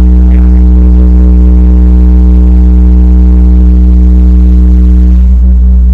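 A huge carnival sound system, CLA Blizzard, playing a very loud, sustained deep bass drone with steady higher tones held over it. One of the upper tones drops out a little before the end.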